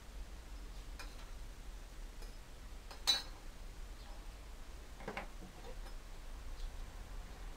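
Sheet metal and hand tools handled on a steel workbench: a faint click about a second in, a sharp metallic clink about three seconds in as the small piece of sheet metal is set down, and a duller knock about two seconds later as tin snips are picked up, over a low steady hum.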